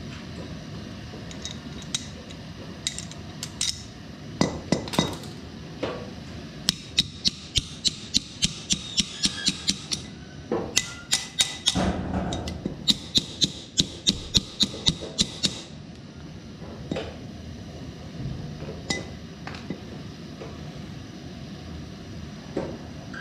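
Hammer blows on steel, driving a heated bearing onto the gearbox shaft of a Yağmur Yet 510 patpat. There are a few single ringing strikes, then two fast runs of blows at about four a second, then scattered taps near the end. The bearing has been heated so that it expands and goes onto the shaft more easily.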